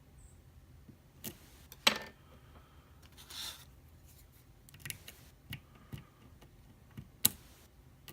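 Metal lock pick working the pins of a Wilka euro cylinder held under heavy tension: a few sharp metallic clicks, the loudest about two seconds in and another near the end, with a short scrape around three and a half seconds and smaller clicks between.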